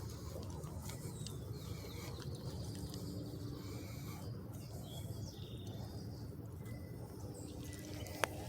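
Outdoor ambience with a few faint bird chirps over a steady low rumble, and a sharp click near the end.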